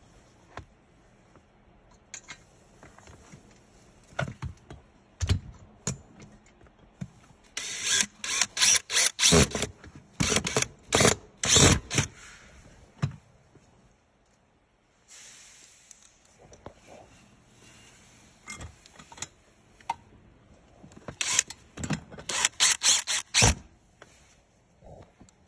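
Cordless drill turning screws through a long extension bit in the massage chair's metal frame: two bouts of short, sharp bursts with clicks and knocks, separated by quieter handling.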